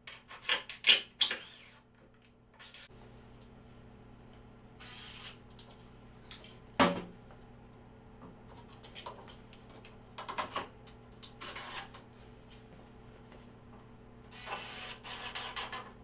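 Workshop handling noises as wooden jig parts and a cordless drill are moved and fitted: a quick cluster of knocks and clicks in the first two seconds, then scattered rustles and knocks, with one sharp knock about seven seconds in.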